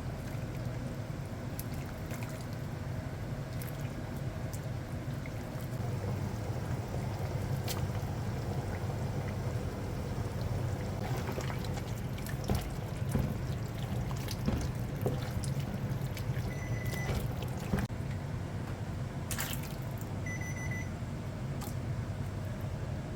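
Liquid pouring and trickling in a kitchen over a steady low hum, with scattered light clicks and knocks. Near the end come two short high beeps, a few seconds apart.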